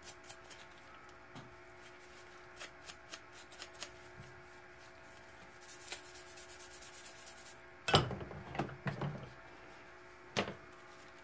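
Small metal revolver parts being handled on a workbench during hand cleaning: scattered light clicks and taps, a brief hiss about six seconds in, then a few sharp knocks, the loudest about eight seconds in and another near ten seconds.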